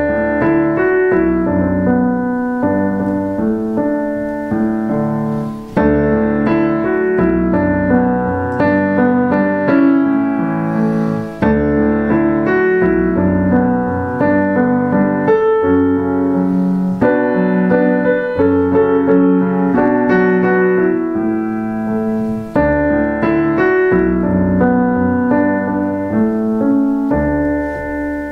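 Solo piano music played on a Roland digital piano: melody over sustained chords, in phrases with a few brief breaks between them.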